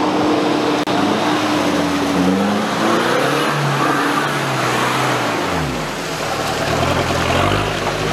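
Jeep Cherokee XJ engine revving as it ploughs through deep mud ruts, tyres churning mud. The revs climb about two seconds in, drop away around six seconds, then rise again near the end.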